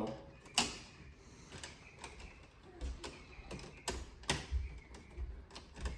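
Scattered sharp clicks and light knocks of hand work at an open electrical breaker panel: a loud click about half a second in, then two more close together near the four-second mark, with fainter taps between.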